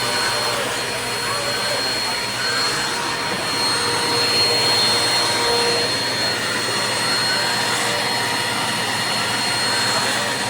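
Upright vacuum cleaner running steadily, its motor noise carrying a constant high whine.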